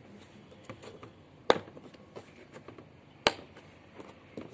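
Two sharp plastic clicks, about two seconds apart, as the snap latches of a hard-shell drill carrying case are flipped open, with a few softer handling taps in between.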